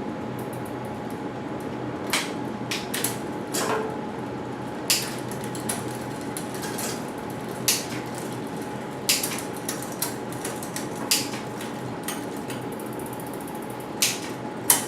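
Irregular sharp clicks and ticks of metal bicycle drivetrain parts being handled and adjusted, about a dozen spread unevenly, over a steady background hum.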